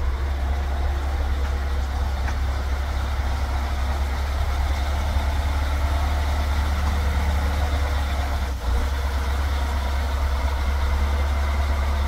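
Heavy-duty diesel truck engine running steadily at low speed, a deep, even drone with a brief dip about two-thirds of the way through.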